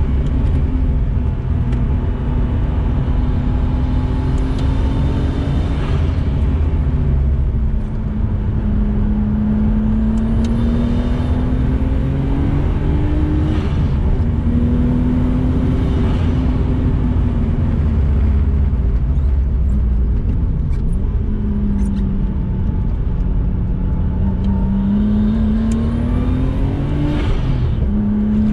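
Nissan RB20DET turbocharged 2.0-litre straight-six heard from inside the cabin of an R32 Skyline under hard driving. The revs climb and drop repeatedly as the car is run through the gears and corners.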